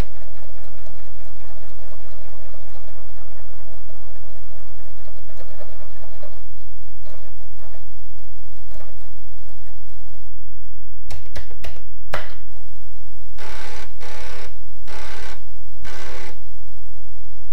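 Loud steady electrical hum and buzz. A cluster of sharp clicks comes about eleven seconds in, then four short bursts of noise.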